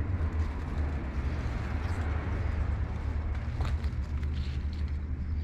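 Leaves and stems rustling as plants are pulled and handled by hand, with a few sharp snaps in the middle, over a steady low rumble.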